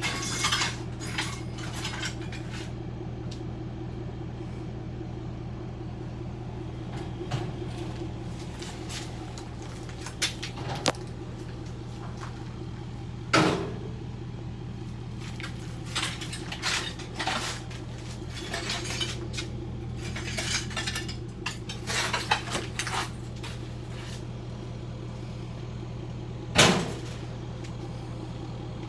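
Jackhammer running steadily, chipping up floor tile, with the clink and clatter of broken tile pieces over it and two sharper knocks, about 13 and 27 seconds in.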